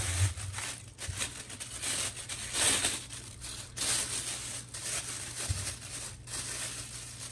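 Clear plastic packaging bag crinkling and rustling as it is handled and pulled off a microphone stand, in irregular crackly bursts.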